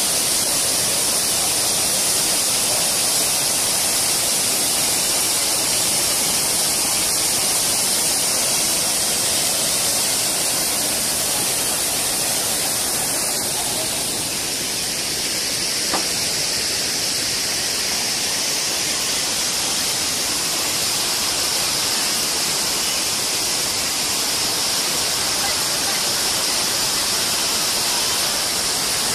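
Steady rushing roar of a waterfall, an even hiss of falling water with no breaks.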